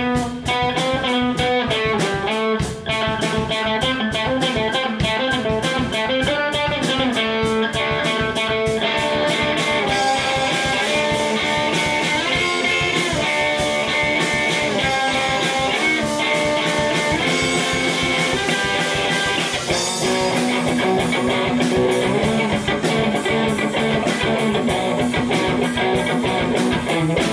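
Electric guitar playing over a steady drum beat.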